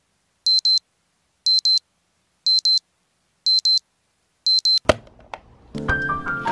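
Digital alarm clock beeping in quick high-pitched pairs, about one pair a second, then cut off with a click about five seconds in.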